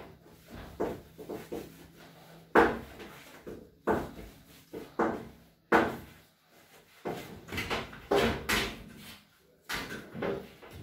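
Sponge scrubbing the enamel lid and hob of a gas cooker in short, separate strokes, with a few sharp knocks against the metal, the loudest about two and a half seconds in.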